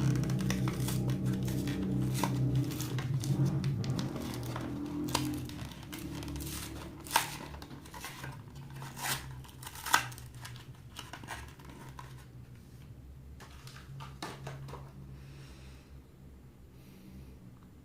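Packaging crinkling and tearing as a finger-puppet toy is unwrapped by hand: dense crackling that thins out, with a couple of louder sharp snaps around the middle. Faint background music fades underneath.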